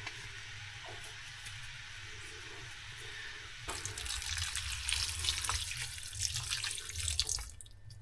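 A quiet frying sizzle from a pan of minced beef and onions. A little under four seconds in, a stream of liquid is poured from a glass jug into the pan, a louder splashing rush that lasts about three and a half seconds and dies away near the end.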